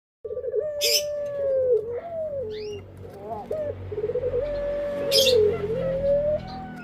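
Male puter pelung dove (a domesticated Barbary dove) cooing: long drawn-out coos that slide up and down in pitch, with short high chirps from another small bird and two brief hissy noises over them.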